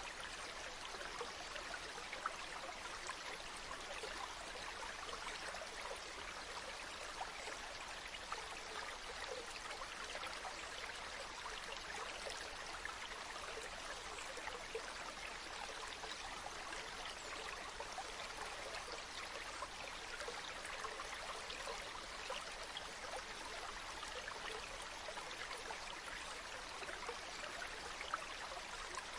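A small stream flowing steadily over stones, a continuous bubbling and trickling with small splashes throughout.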